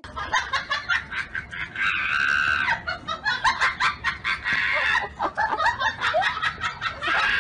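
Siberian husky yowling and whining in high-pitched cries, with one long cry about two seconds in and shorter gliding ones later, over many short clicks and clatters.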